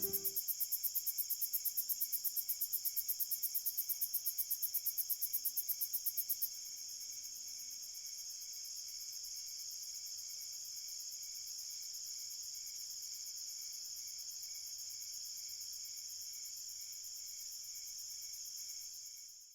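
Insects chirping: a steady high trill, with a fast, evenly pulsing chirp over it that stops about six and a half seconds in.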